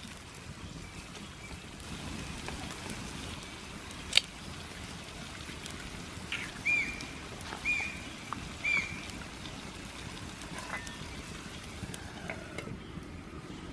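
Japanese green woodpecker singing: three clear whistled notes about a second apart, over a steady hiss. One sharp crack about four seconds in.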